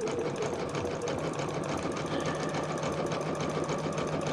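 Electric sewing machine stitching a zigzag around the edge of an appliqué: a rapid, even run of needle strokes over a steady motor hum.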